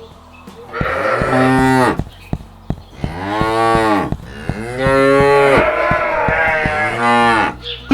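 Cow mooing: four long calls in a row, each rising and falling in pitch, with a few short clicks between them.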